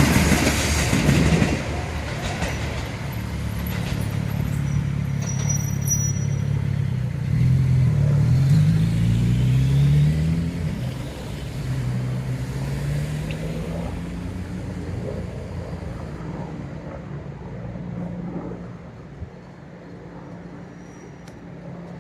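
A JR Kyushu diesel railcar moving away after passing: the wheel clatter dies away in the first second or so, then the engine's pitch rises as it accelerates, twice, and the sound slowly fades into the distance.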